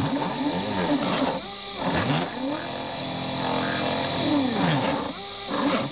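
Proxxon BFW 40/E milling motor running while the CNC conversion's stepper motors whine in rising and falling pitches as the cutter engraves letters into wood. The pitch holds steady through a stretch in the middle, and the stepper sound drops out briefly twice.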